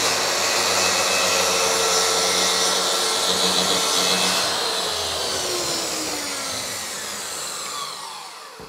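Makita track saw running and cutting a board along its guide rail, with a dust extractor running alongside. About four and a half seconds in the cut ends and the motors wind down, the pitch falling steadily as the sound fades out.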